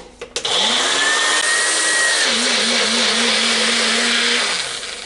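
Magic Bullet blender grinding blanched spinach to a purée. A couple of clicks as the cup is pressed into the base, then the motor spins up and runs steadily for about four seconds before winding down near the end.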